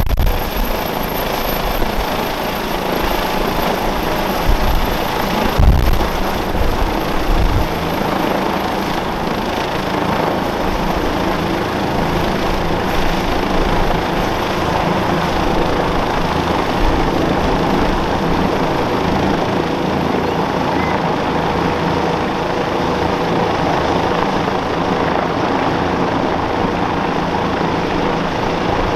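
Airbus H135 P3 helicopter with twin Pratt & Whitney PW206B3 turboshafts climbing away after take-off: a steady rotor and turbine din with a high turbine whine that fades toward the end as it moves off. A few low thumps come about five to seven seconds in.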